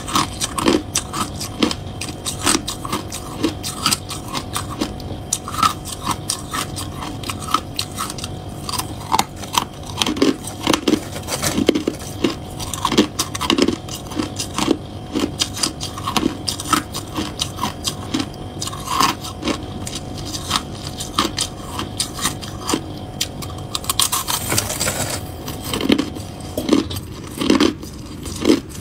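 Crushed ice being bitten and chewed close to the microphone: dense, irregular crunching and cracking. About twenty-four seconds in, a brief louder hissing rustle.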